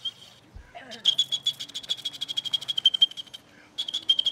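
Small high-pitched whistle blown as a rapid fluttering trill, about a dozen pulses a second on one pitch. It starts about a second in, breaks off briefly and starts again near the end.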